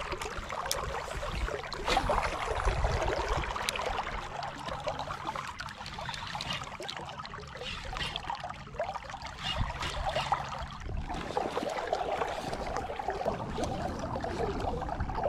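River water sloshing and trickling around a wading angler's body, with a few small clicks and knocks.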